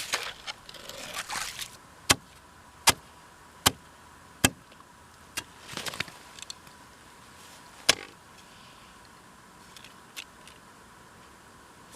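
Ice chisel striking the ice in sharp single blows, chiselling a slot beside a drilled ice-fishing hole. A short scraping, crunching stretch comes first, then four evenly spaced blows a little under a second apart, then a few more spaced-out strikes.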